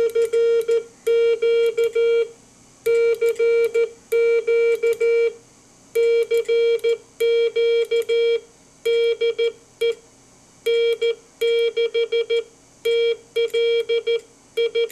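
Morse code (CW) sent as a single steady, medium-pitched tone, keyed on and off in dots and dashes with short pauses between groups. It is the on-air signal of the VX-101-JR's 807-tube transmitter being keyed, heard as a monitor tone.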